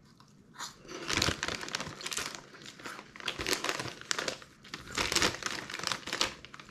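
A crinkly plastic snack bag crackling in several bursts as it is picked up and handled.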